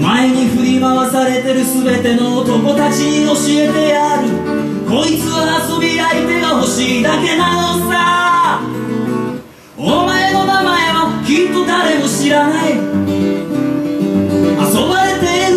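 A man singing to his own acoustic guitar. Voice and guitar break off together for a moment about nine and a half seconds in, then go on.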